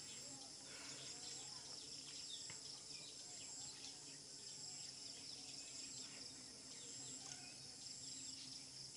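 Faint rural ambience: a steady high insect drone, one note of it pulsing on and off, with scattered short bird chirps.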